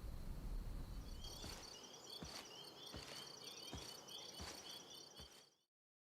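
Faint night-time ambience of insects: crickets or similar keep up a steady high trill while a short chirp repeats about three times a second. Slow, regular thuds come about every three-quarters of a second. Everything cuts off suddenly near the end.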